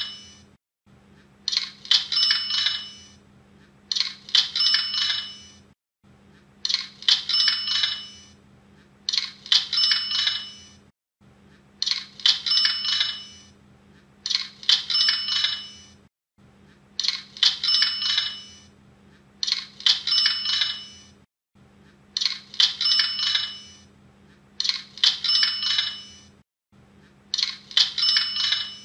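Cash register sound effect, the Hotmart sale-notification sound, repeating about every two and a half seconds: a short clatter of clicks with high bell-like ringing tones.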